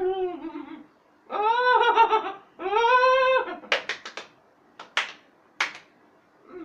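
A person's wordless, high-pitched cries of delight at the taste of the food: three long held calls. These are followed by a quick run of hand claps and two more single sharp claps.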